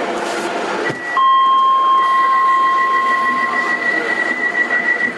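Light-rail train at a station platform: background rumble and noise, with steady high-pitched electronic tones that come in about a second in, one stopping a little before the end and another held almost to the end.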